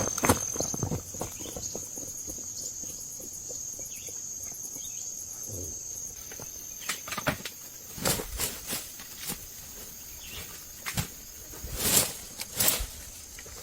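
Insects chirring steadily at a high pitch, with scattered sharp knocks or taps in the second half.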